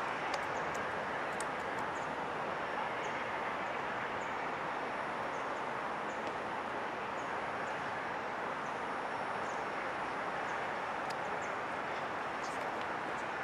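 Amtrak passenger train rolling slowly past at a distance: a steady rushing wheel-and-rail noise, with faint short high chirps scattered through it.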